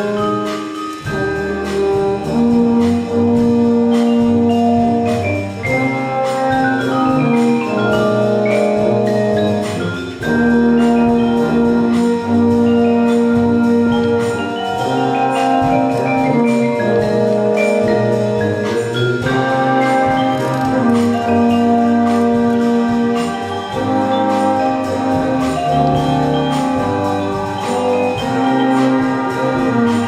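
A batterie-fanfare (brass and percussion band) playing a concert piece: brass holding long chords under moving melodic lines, with marimba and xylophone parts. The music dips briefly about ten seconds in, then comes back at full volume.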